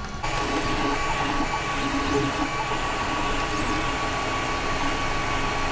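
Creality Ender 3D printer printing: its cooling fans run steadily while the stepper motors sound short tones that shift in pitch as the print head moves. It starts about a quarter second in.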